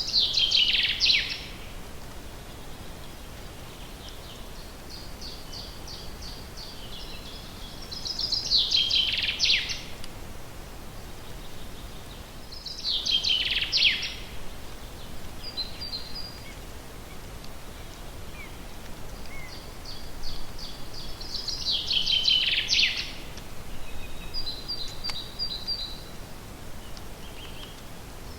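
A songbird sings the same short song four times, each a run of quick repeated notes falling in pitch into a final flourish, with fainter short calls between songs. A steady faint hiss runs underneath.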